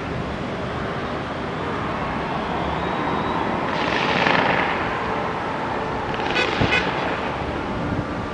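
Steady outdoor traffic noise, swelling briefly about four seconds in, with a short cluster of high tones and clicks a little past six seconds in.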